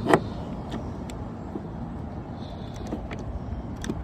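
A hand-operated rivet gun being worked: one sharp click right at the start, then a few light scattered clicks and ticks, over a steady background hum.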